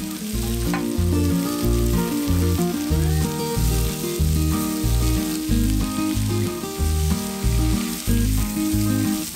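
Mushrooms, onion and bell pepper strips sizzling in a hot oiled pan while being stirred with a spatula. Background music with a steady repeating bass line plays over it.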